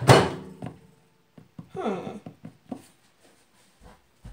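A girl making short wordless vocal sounds that slide in pitch, then a few soft low thumps of footsteps near the end.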